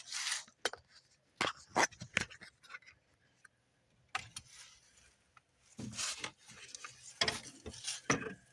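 Hands working a truck door wiring-harness connector and its plastic retaining clips, making irregular plastic clicks, scrapes and rustles with a short lull in the middle.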